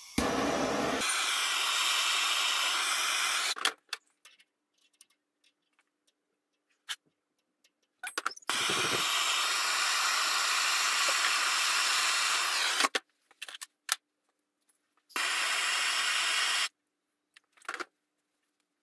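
Handheld gas torch hissing in three steady bursts, about three and a half seconds, then about five, then a second and a half, with short quiet gaps and small clicks between, as it heats a copper elbow joint for soldering.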